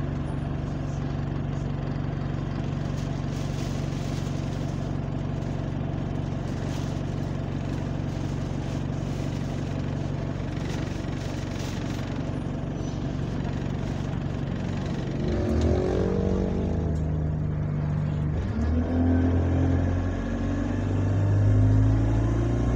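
Bus engine heard from inside the saloon, running steadily at first. About fifteen seconds in it gets louder and climbs in pitch as the bus pulls away, the pitch dropping back and rising again a few times as the gearbox changes up.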